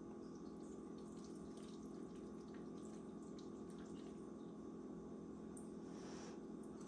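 Faint scattered clicks and taps of a metal fork against a ceramic plate as linguine is twirled, over a steady low hum.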